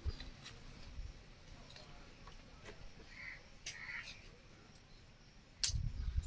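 Small wood fire in a mud cooking stove giving scattered sharp crackles and pops while thin sticks are pushed into it. A louder low thump comes near the end.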